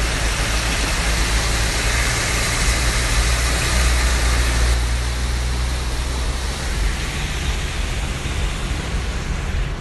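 Heavy rain hissing on a car's roof and windscreen, heard from inside the cabin, over a steady low engine hum as the car drives through a flooded street.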